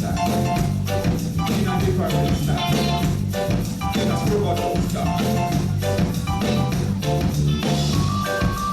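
Live reggae band playing an instrumental passage: a steady bass line under drum kit and short keyboard chords. A held higher note comes in near the end.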